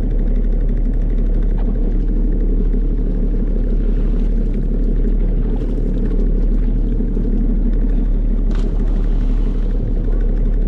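Jet ski engine running, a steady low drone with no let-up.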